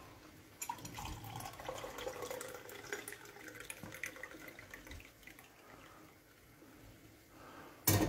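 Hot tea being poured into a glass mug with a spoon in it, a steady splashing pour that stops about five seconds in.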